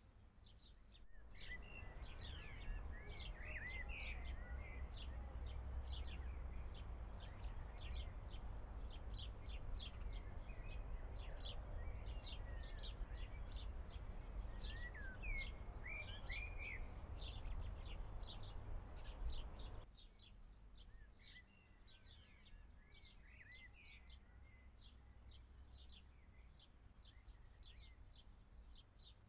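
Small birds chirping and singing outdoors over a low steady rumble. The rumble comes in about a second in and drops away abruptly about two-thirds of the way through, leaving the birds over a quieter background.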